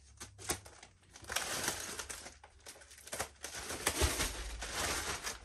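Plastic wrapping crinkling and rustling as plastic-bagged rolls of fabric are handled and shifted, with a few light clicks and knocks; the rustling picks up about a second in.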